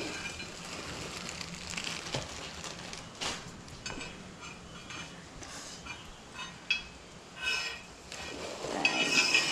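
Handling noises: scattered light clinks, rattles and rustles, with a louder cluster of clatter near the end.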